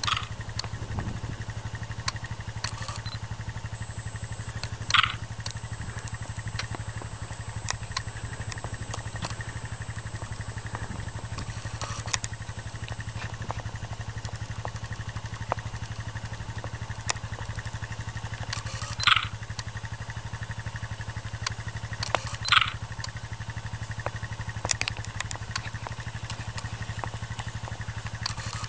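Small utility vehicle's engine idling steadily with a low hum. About four times, a short whirring click of a digital camera taking a picture breaks in; these are the loudest sounds.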